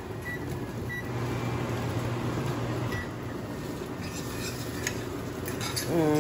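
Kitchen range-hood vent fan running steadily, with a low hum, and a few light clinks of utensils near the end.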